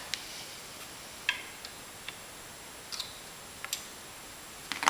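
Scattered light metal clicks and taps, about eight in all with a small cluster near the end: the control stick assembly's bolt, bushing and washer knocking together as they are worked into place by hand.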